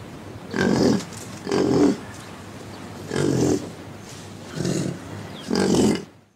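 An animal calling: five short, low calls about a second apart. The sound cuts off suddenly near the end.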